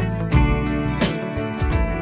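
Background music with sustained notes over a bass line and recurring percussion hits.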